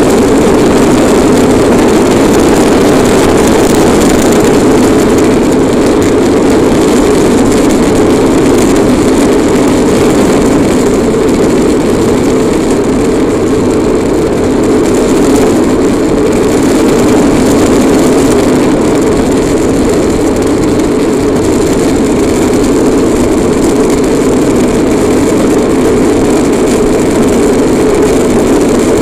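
Bobby-Car ride-on toy car rolling fast down an asphalt road: a loud, steady rolling noise of its wheels on the tarmac.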